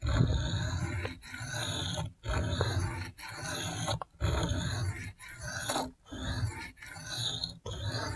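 A Spyderco Shaman's Cruwear steel blade is stroked across a wet Venev diamond sharpening stone, a rasping scrape about once a second, some nine strokes in all.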